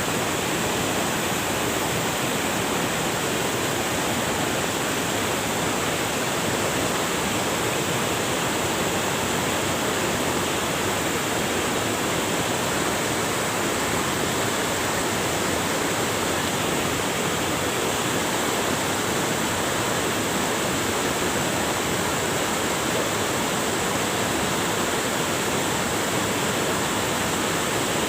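River water rushing over rocks: a steady, unbroken rush.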